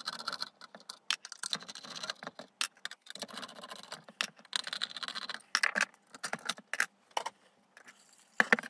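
Hands taking apart an LED PARcan stage light on a workbench: rapid clicks, taps and metallic clinks of screws and the metal housing, in short choppy bursts broken by brief gaps.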